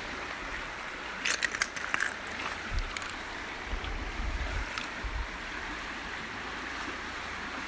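Steady rush of creek water flowing past, with a few sharp clicks about a second in and some low bumps near the middle.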